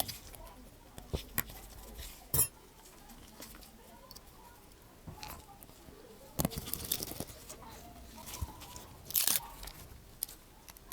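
Scattered small clicks, taps and short scrapes of tools and small phone parts being handled on a workbench during reassembly of a smartphone onto a new screen frame. The clearest clicks come just after the start, about two and a half seconds in, and near the middle and end.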